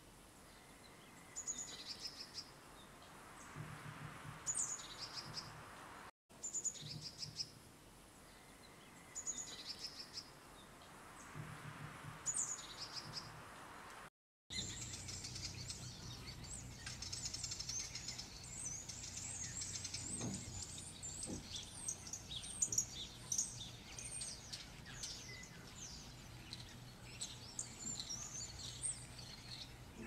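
Songbirds singing: short, high, repeated phrases at first, then from about halfway a denser chorus of many overlapping chirps. The sound cuts out briefly twice.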